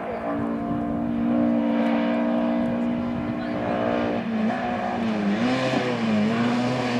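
Hillclimb race car engine at high revs, its pitch held steady for about four seconds, then dipping and rising several times as the car shifts and comes off and back on the throttle.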